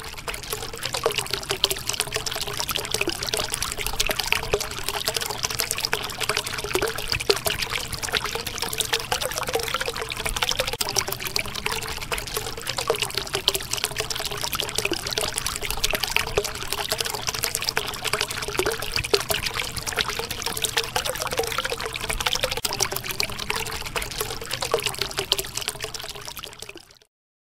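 Water trickling and babbling steadily, a dense splashy crackle that fades out near the end.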